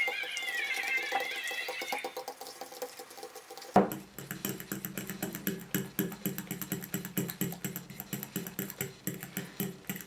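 Metal fork clicking and scraping against a bowl as bananas are mashed into a purée, a rapid irregular run of clicks. For the first two seconds a wavering high-pitched sound lies over it, and about four seconds in a steady low hum comes in under the clicks.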